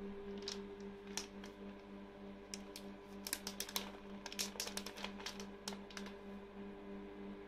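Microwave oven running with a steady low hum. From about two and a half seconds to six seconds in, a quick run of light clicks and taps sits over it.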